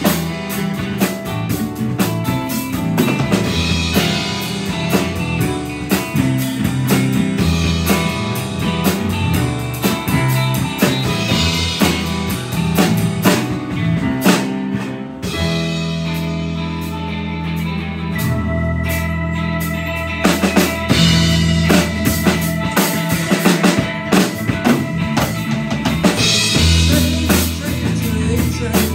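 Live rock band playing: drum kit, electric guitar, electric bass and keyboard. Drum strikes run through steady bass notes, and a single high held note sounds over the band for several seconds past the middle.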